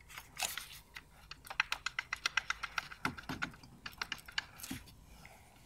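A quick run of light clicks and taps from tools and engine parts being handled at the engine bay, with a couple of soft knocks about three seconds in.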